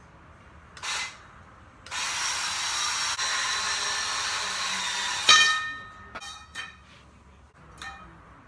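A handheld power tool cutting through 1-inch square metal tubing: a short blip about a second in, then about three and a half seconds of steady cutting. It ends in a loud, ringing metal clang, followed by a few lighter clinks.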